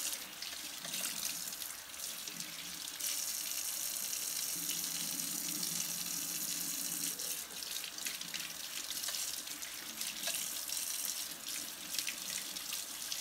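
Kitchen tap running steadily into a sink, the stream louder for a few seconds in the middle, with scattered light clicks as a small round brush is worked in and out of a Coleman Q99 generator tube under the flow.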